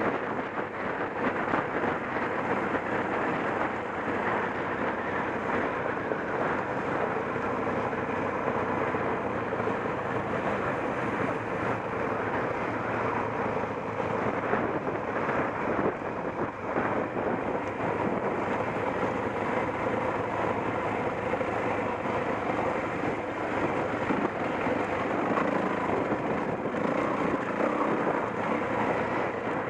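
Off-road motorcycle engine running steadily while riding, with wind noise on the microphone.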